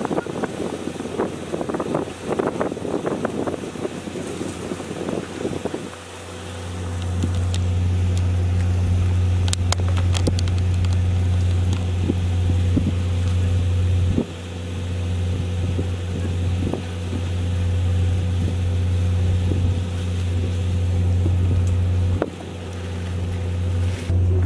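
Wind buffeting the microphone, then from about six seconds in a loud, steady low engine hum that dips briefly twice and comes back.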